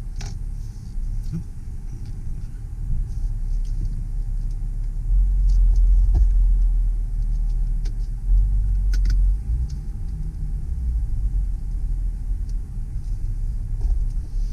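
Low rumble of a 2007 Mercedes-Benz ML320 CDI's turbodiesel V6 running, heard from inside the cabin as the SUV is shifted out of park into reverse and drive, with smooth, noise-free shifts. The rumble swells for about four seconds midway, with a few light clicks.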